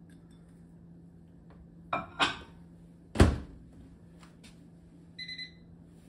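Two knocks as a cup is set inside a Whirlpool over-the-range microwave, then the microwave door shut with a loud thump about three seconds in. Near the end comes a short electronic beep from the keypad as a button is pressed.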